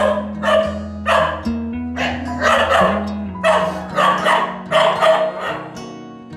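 Dog barking repeatedly, about two barks a second, with the barks stopping shortly before the end, over background music with held tones.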